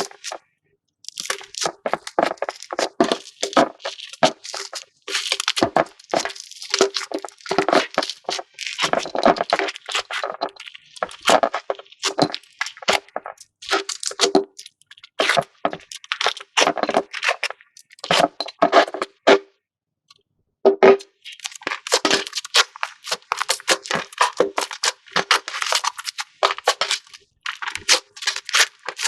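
Slime being squeezed and worked by hand, a dense run of irregular crackling, crunchy clicks and pops, with a brief pause about 20 s in.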